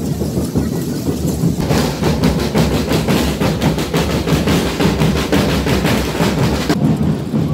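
Marching drum line of bass drums and snare drums playing a fast, driving beat; the drumming turns loud and sharp about a second and a half in as the drummers come close, and falls back near the end.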